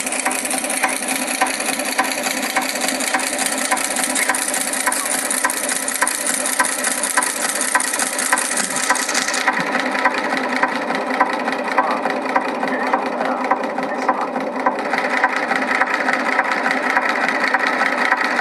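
Shoe-making machinery running: a steady mechanical clatter with a regular clicking beat, its character changing twice as different machines are shown.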